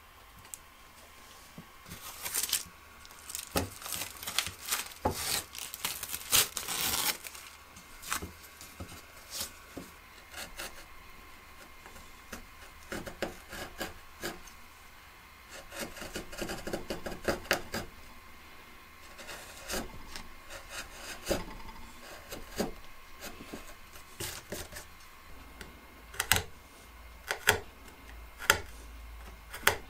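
Hand-pushed carving chisel cutting into wood: short, sharp slicing and scraping cuts in irregular bursts, with quiet pauses between them.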